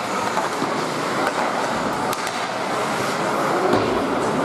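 Ice hockey in play in an echoing arena: skates scraping on the ice over a steady rink hum, with a stick or puck clacking now and then and faint spectator voices.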